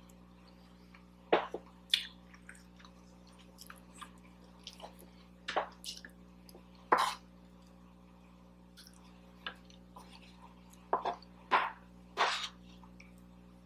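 Close-miked mouth sounds of someone chewing soft food: about a dozen short, wet smacks and clicks at irregular intervals over a faint steady hum.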